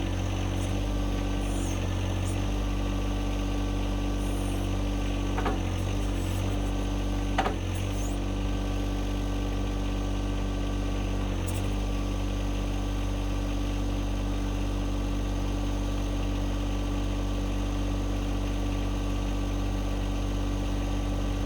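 John Deere 2025R compact tractor's three-cylinder diesel engine running steadily while the 260B backhoe's hydraulics raise the boom and tuck the bucket. The engine note dips briefly a few times as the hydraulics take load.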